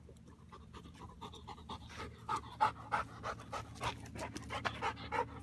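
A tracking dog panting quickly and hard while working a scent track, the breaths growing louder after about a second as the dog comes close.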